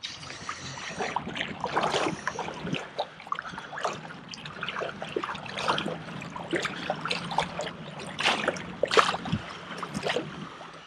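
Legs wading through shallow, choppy lake water, with irregular splashing and sloshing at each step.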